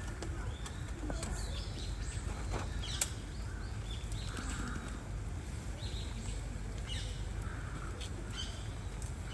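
Outdoor background with a steady low rumble, scattered short bird chirps and a single sharp click about three seconds in.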